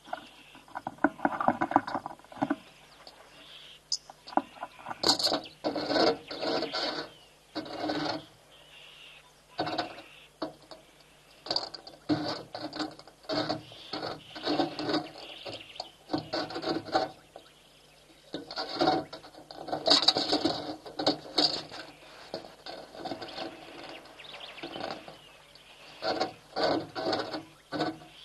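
African elephants working their trunks in a shallow, weed-covered waterhole: irregular bursts of water splashing and sloshing, a few seconds apart.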